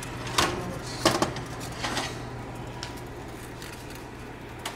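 Kitchenware being handled: a few light clinks and knocks, about half a second, one second and two seconds in, over a steady low hum.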